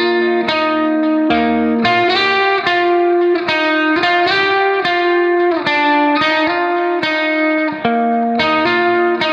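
Background music: a guitar playing a melody of sustained notes that change about every half second.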